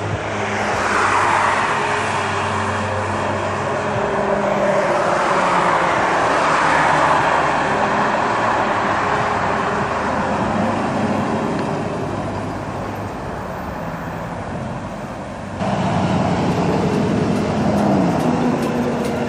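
Pickup truck engines running amid a steady din of traffic, with a low hum under a broad rushing noise. The sound jumps abruptly louder and rougher about three-quarters of the way through.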